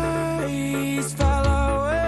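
Background music: sustained melody notes over a deep bass, with a heavy bass hit about a second in and a melody line that slides upward near the end.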